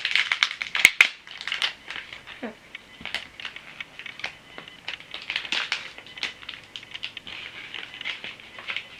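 Plastic and paper toy packaging crinkling and crackling as it is handled and opened, with a couple of sharp snaps about a second in and lighter rustling after.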